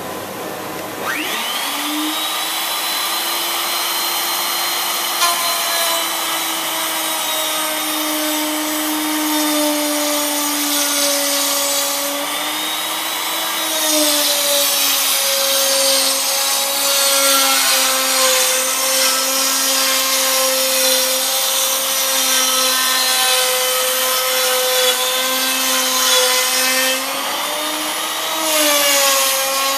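Table-mounted router spinning up about a second in, its whine rising and settling to a steady high pitch. About halfway through it starts cutting wood as a plank is fed along a template against the pin, adding a rough cutting noise while the motor's pitch dips and recovers under load.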